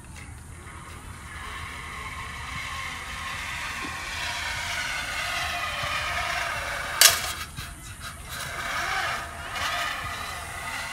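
Playground zip line trolley rolling along its steel cable, a whirring whine that grows louder as the rider picks up speed, with a sharp clank about seven seconds in.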